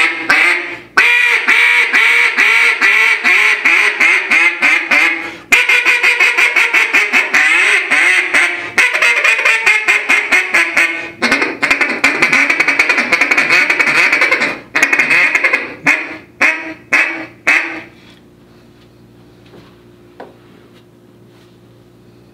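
Buck Gardner Double Nasty poly double reed duck call blown as a mallard-style sequence: a run of quacks falling in pitch, then a very fast rapid-fire chatter, then more quacks. It ends with a few spaced single quacks and stops about 18 seconds in.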